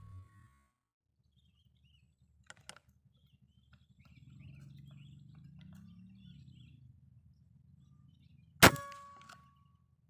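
A single air-rifle shot near the end: one sharp crack followed by a short metallic ring. Faint bird chirps and two small clicks come earlier.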